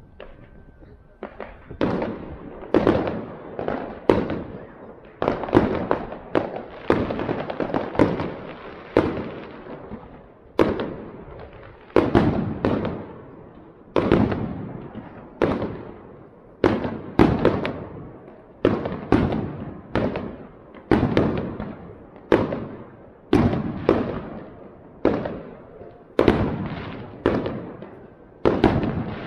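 Aerial fireworks bursting overhead in a steady run of sharp bangs, about one to two a second, each trailing off in an echo. The bangs start about a second and a half in.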